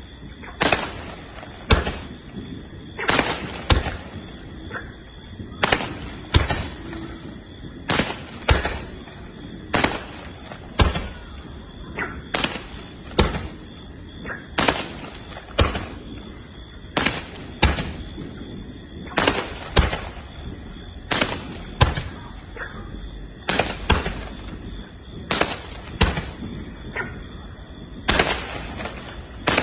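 Firework candles firing a long series of sharp bangs, roughly one to two a second and unevenly spaced. Each shot sends up a tailed star that bursts into a chrysanthemum break.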